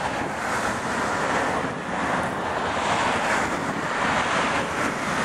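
Airbus A330-200 airliner's jet engines heard from a distance as it rolls out after touchdown, a steady rushing noise.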